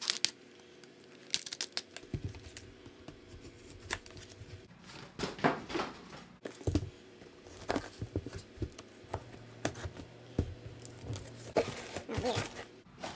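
Shipping boxes and plastic packing being torn open and crinkled: a quick, irregular run of tearing, rustling and knocks, sped up.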